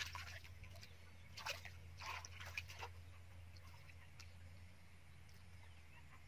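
Hands sloshing and splashing in shallow muddy water while groping for fish: a few short splashes in the first three seconds, then quieter, over a faint low steady hum.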